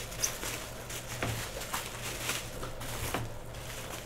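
Plastic bubble wrap and a poly mailer bag crinkling and rustling as they are handled and unwrapped, with irregular sharp crackles.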